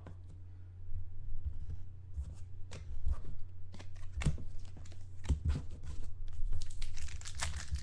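Football card packs being handled and opened: scattered clicks and card slides, with the wrapper crinkling and tearing more densely near the end, over a steady low electrical hum.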